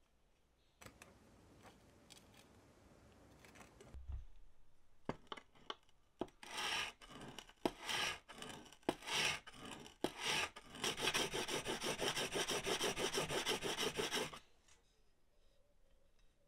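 Steel plane iron being rubbed back and forth on a sharpening abrasive to flatten and regrind it. There are a few separate scraping strokes with clicks, then a run of fast, even strokes that stops abruptly.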